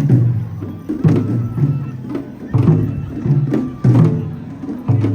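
Traditional Japanese festival music: drums and sharp wooden clicks struck in a steady rhythm, with the strongest strikes about every second and a bit.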